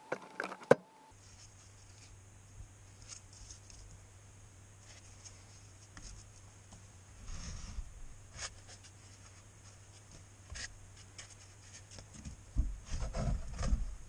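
Handling of a plastic electric radiator fan and shroud assembly being unpacked: light rubbing and knocks of plastic and foam packing blocks, with a sharp click near the start and heavier bumps near the end as the assembly is lifted.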